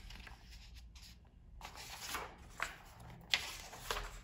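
Album photobook pages and paper inserts being handled and turned: a few short paper rustles and light taps, the sharpest a little after three seconds in.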